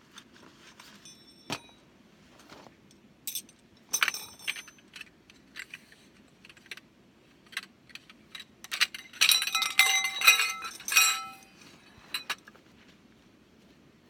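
Metal objects clinking and jangling as they are handled: scattered sharp clinks, then a dense run of ringing clinks about nine to eleven seconds in.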